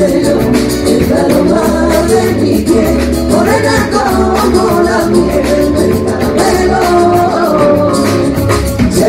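Live Latin American music played by a small group: a melody, sung in places, over instrumental accompaniment with a quick, steady rhythm.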